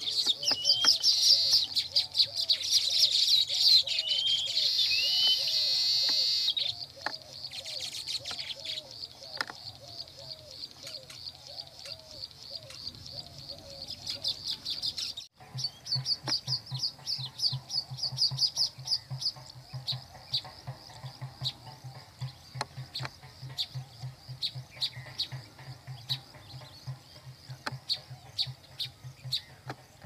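Baya weavers chattering: a continuous stream of rapid high chirps, loudest in the first few seconds, with a brief break about halfway.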